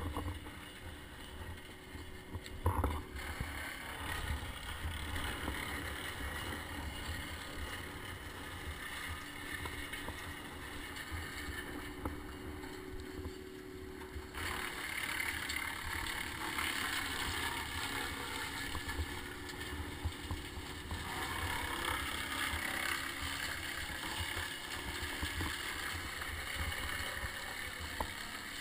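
Wind rumbling and hissing over a climber's head-mounted camera microphone, with a single knock about three seconds in.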